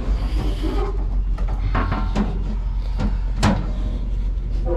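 Several sharp metal knocks and clanks as parts are handled inside a condenser cabinet, the loudest about three and a half seconds in, over a steady low rumble.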